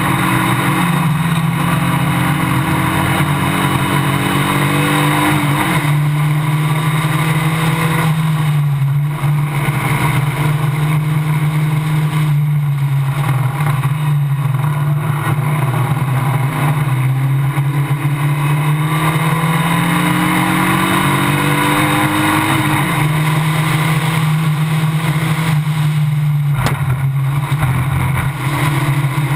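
Formula Basic single-seater racing car's engine at racing revs, heard onboard. Its pitch climbs and falls with the revs and drops sharply twice, about six seconds in and again about 23 seconds in, over a steady rush of wind and road noise.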